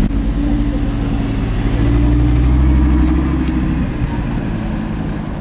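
Audi R8's V10 engine at low revs, pulling away with its note rising slightly in pitch. It is loudest about halfway through and fades near the end.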